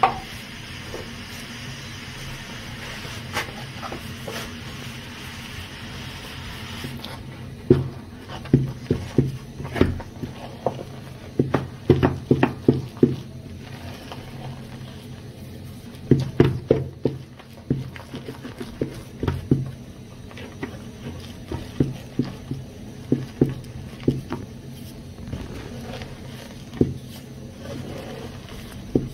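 Wooden spoon knocking and scraping against an aluminium saucepan while stiff cassava-and-sorghum posho is mingled, in irregular runs of thumps from about seven seconds in. Before that a steady hiss, which cuts off suddenly.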